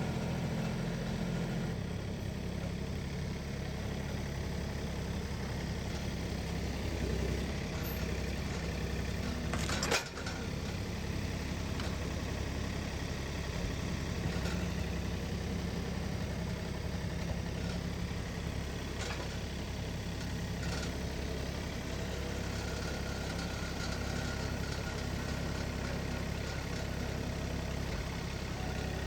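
Tractor engine running steadily as the grapple works, with a single sharp knock about ten seconds in.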